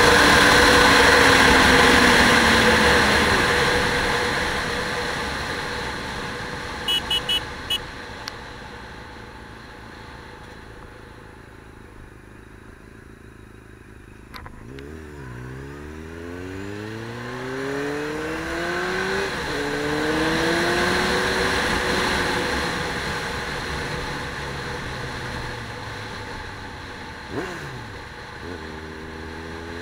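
A motor vehicle goes past loudly and fades away, with a few short high beeps partway through. Then an engine accelerates, its pitch rising, dropping at a gear change and rising again, and it accelerates once more near the end.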